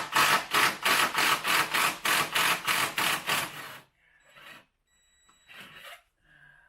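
Ratchet wrench being worked back and forth quickly on a bolt of the front engine mount bracket, about four clicking strokes a second, stopping about four seconds in, followed by a few faint knocks.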